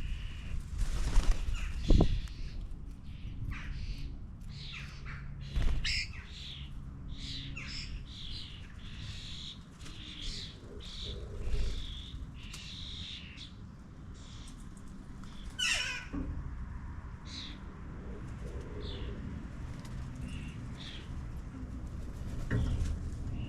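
Garden birds calling: a busy run of short chirps and squawks, with a few sharp knocks in the first two seconds and one louder sweeping call about two-thirds of the way through.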